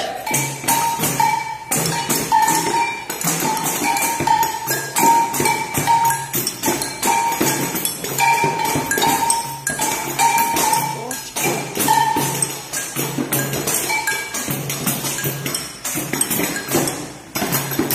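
A group of children playing pandeiros and other hand percussion together in a steady rhythm, jingles rattling with each stroke, with short held tones sounding on and off over it.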